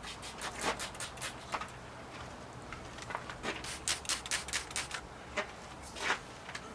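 Rubber hinge strip being worked into the hinge channel of a motorhome storage compartment door, lubricated with soap: an irregular run of short clicks, several a second.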